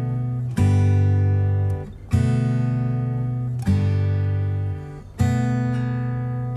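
Background music: acoustic guitar strumming chords, a new chord struck about every second and a half and left to ring.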